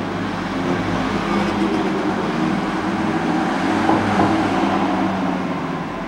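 A heavy engine running nearby: a steady low drone that swells about four seconds in and fades near the end.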